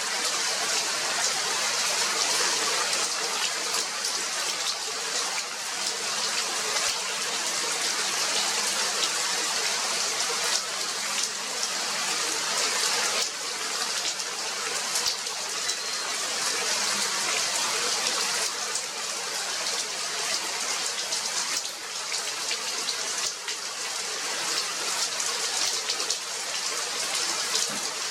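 Steady rain: a dense, even hiss of falling drops with many small patters throughout.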